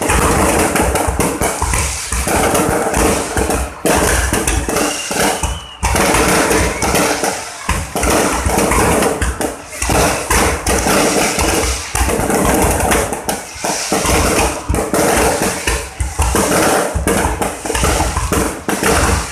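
Fireworks display: a dense, continuous string of bangs and thuds with only brief lulls.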